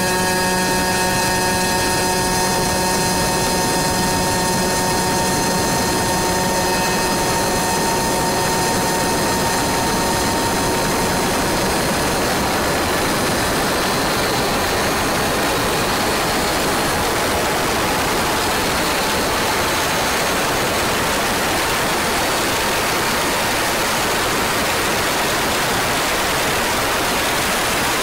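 A 100cc two-stroke kart engine held at a steady high pitch at full speed, with wind rushing over the microphone. About halfway through, the wind noise grows and drowns out most of the engine note.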